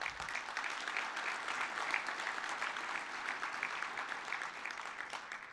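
Audience applause, a dense patter of many hands clapping that dies away near the end.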